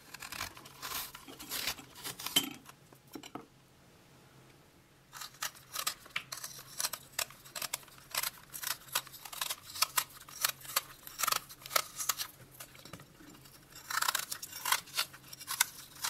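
A kitchen knife peeling a quince: a run of short, crisp scraping strokes as the blade cuts through the skin, with a pause of about a second and a half a few seconds in.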